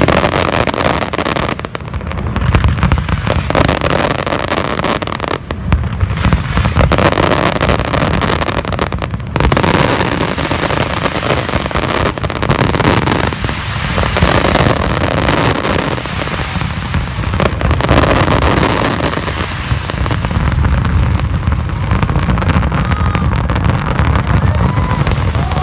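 Fireworks display in a dense barrage: aerial shells bursting in rapid, overlapping bangs with no gaps between them.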